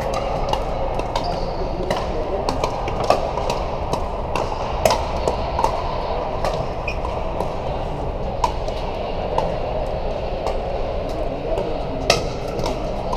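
Pickleball paddles popping against plastic balls, irregular sharp hits from many courts at once over a steady din of voices in a large hall, with one louder pop near the end.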